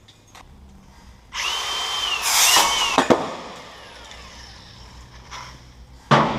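A handheld power tool spins up with a whine, runs for about two seconds on metal and winds down. A couple of sharp knocks follow, and a loud clank near the end.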